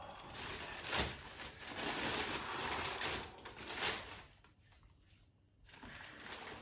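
Rustling and handling noise from sneakers and their packaging being moved about, with a couple of sharper crinkles. It stops after about four seconds and returns faintly near the end.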